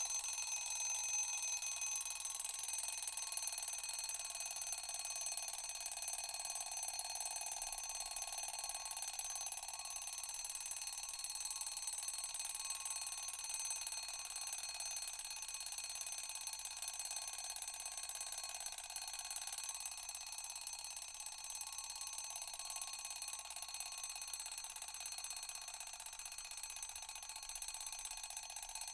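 Mechanical alarm clock bell ringing continuously without a break, a dense, high metallic ring that eases off slightly towards the end.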